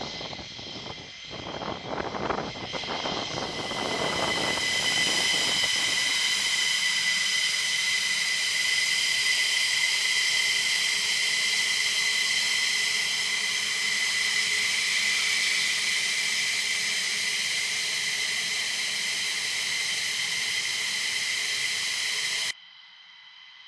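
F-15E Strike Eagle's twin jet engines running on the ramp, a steady high-pitched whine made of several held tones. It cuts off abruptly near the end, leaving a much quieter hiss.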